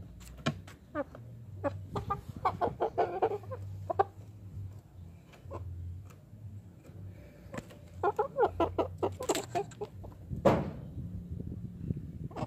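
Criollo chickens, a rooster and hens, clucking in two runs of quick, short clucks, about two seconds in and again around eight seconds in. A single louder rush of noise comes about ten seconds in.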